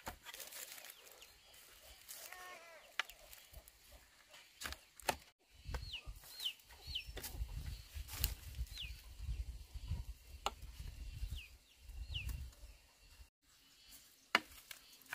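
Chickens calling: a short clucking call about two seconds in, then several short high chirps, each falling in pitch, through the middle. Scattered sharp knocks and a low rumble sound between the calls.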